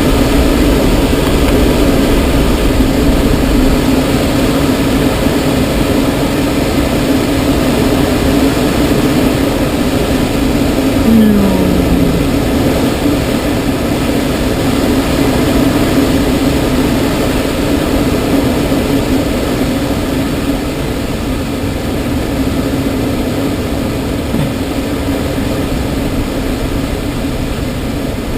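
Loud, steady rush of air over a glider's canopy on landing approach with the air brakes extended, with a steady low drone underneath. The sound eases slightly near the end.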